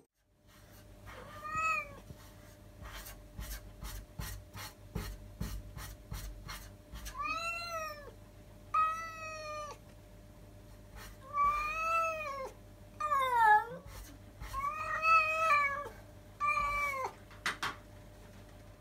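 A domestic cat meowing at a closed door at night, about seven drawn-out, rising-and-falling meows spaced a few seconds apart, one near the middle sliding downward. It is crying to be let out, which the owners take as wanting to go home. Faint clicks come between the first meows.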